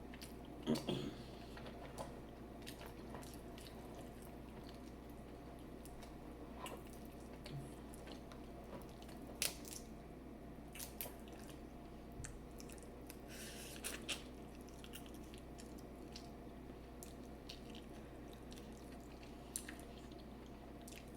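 A person quietly chewing and eating food, with scattered short clicks and mouth sounds, the loudest about a second in and near the middle, over a steady low hum.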